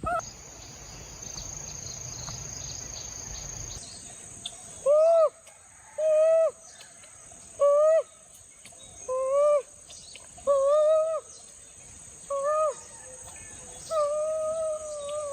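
A series of about seven short hooting calls, a second or more apart, the last one drawn out longer, starting about four seconds in. Insects drone steadily underneath.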